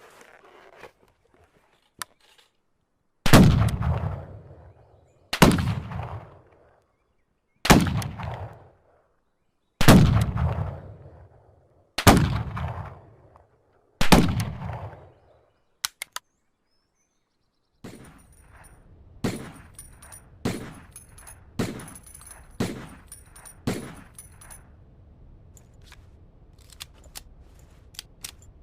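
Colt 1860 Army .44 cap-and-ball revolver firing six loud shots about two seconds apart, each with a long ringing tail. A few light clicks follow, then six quieter, quicker shots about a second apart.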